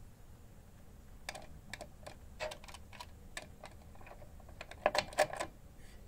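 A scattered series of light clicks and taps from handling parts inside a PC case around a CPU socket, with two louder clicks close together about five seconds in.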